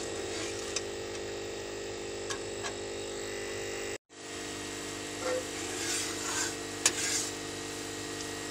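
A steady hum, with a few light taps and scrapes of a steel slotted spatula in an aluminium karahi of sugar syrup. After a brief cut-out about halfway, the boiling syrup gives a few short splashy bursts and a sharp tap.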